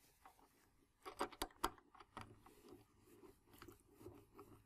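Lid of an Indigo520 transmitter enclosure being closed and fastened by hand: a few sharp clicks about a second in, then faint scraping and ticking as the lid's fastenings are worked.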